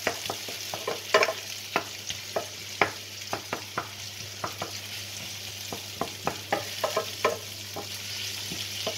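Onions, tomato and green chillies sizzling as they fry in a frying pan, stirred with a wooden spatula that knocks and scrapes irregularly against the pan, several knocks a second over a steady hiss.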